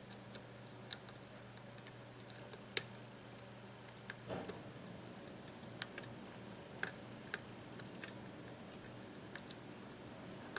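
Scattered light clicks of a lock pick working the pin stack of a Bearsback challenge lock under light tension, with one sharper click about three seconds in. A low steady hum lies underneath and drops away about four seconds in.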